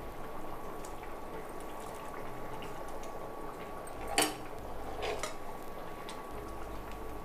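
Steel spoon stirring a thick tamarind gravy simmering in a pan, with soft bubbling and sloshing. The spoon clinks sharply against the pan about four seconds in, and more softly a second later.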